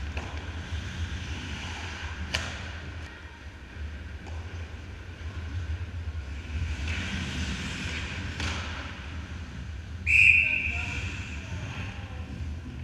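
Ice hockey play on a rink: skates scraping and a couple of sharp stick-on-puck clacks, then a referee's whistle, one blast about ten seconds in, stopping play, with the rink's echo trailing after it.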